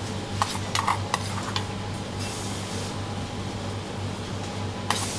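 A metal spoon clinking lightly against a ceramic plate while broccoli florets are set down, several quick clicks in the first two seconds and one more near the end, over a steady low hum.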